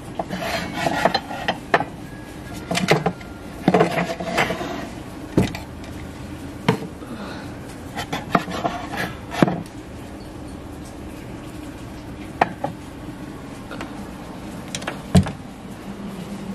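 Objects being handled and set down: irregular clinks, knocks and rubbing, with a sharper knock about nine seconds in and again near the end.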